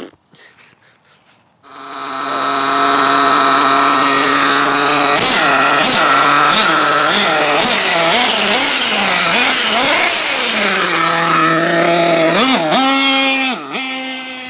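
Small nitro engine of an RC monster truck starting up and running loud and high-pitched, its revs rising and falling repeatedly, then settling to a steady idle with two quick throttle blips near the end.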